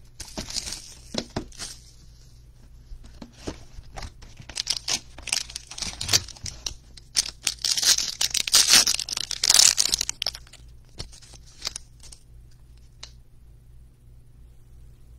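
Plastic shrink wrap and the pack's wrapper crinkling and tearing as a trading card box and pack are opened by hand, loudest about eight to ten seconds in, then falling quiet as the cards are handled.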